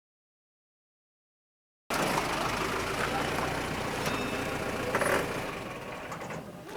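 Dead silence for about two seconds, then a motor vehicle running with road noise, fading near the end.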